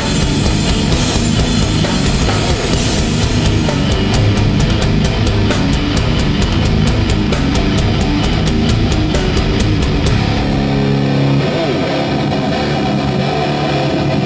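Hardcore band playing live: loud distorted electric guitars, bass and drums, with rapid, evenly spaced drum and cymbal hits in the middle. About ten seconds in the drums drop out and distorted guitar chords ring on alone.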